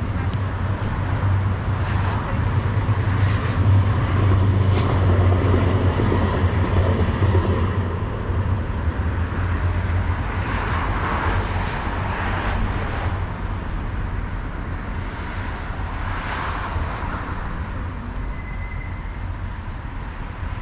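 City street traffic: cars passing one after another, their tyre noise swelling and fading, over a low engine rumble that eases off after about eight seconds.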